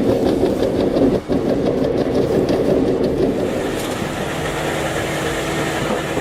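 Heavy machine engine running loud and steady, with a brief drop just after a second in; about four seconds in it eases to a lighter, steadier hum with a held tone.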